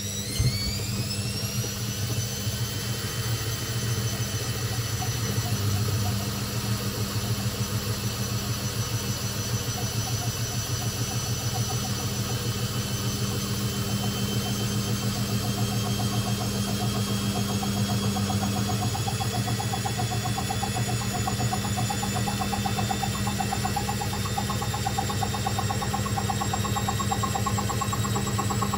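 Hoover VisionTech washing machine drum speeding up in a spin. The motor whine climbs steeply in pitch at first, levels off about two seconds in, then creeps slowly higher over a steady rhythmic vibration from the drum. This is a machine that jumps on spin, its suspension described as screaming for help.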